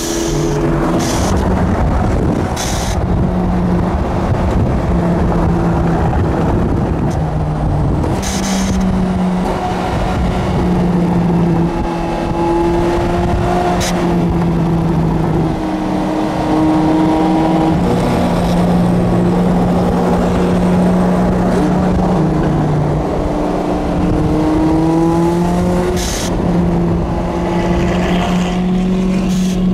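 Supercar engine running under way, its note shifting up and down several times, with a rising glide a little before the end. A few brief sharp clicks or knocks cut through, the clearest about eight seconds in and near the end.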